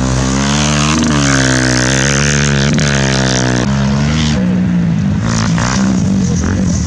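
Dirt bike engine being ridden hard, revving up and falling back several times as the rider works through the gears, then dropping to a lower, steadier note about four seconds in.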